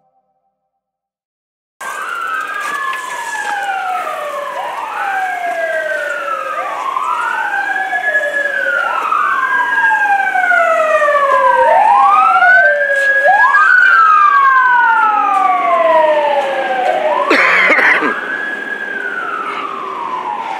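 Emergency vehicle sirens wailing, starting about two seconds in: two sirens overlap out of step, each rising quickly and then falling slowly. A brief harsh burst cuts through about seventeen seconds in.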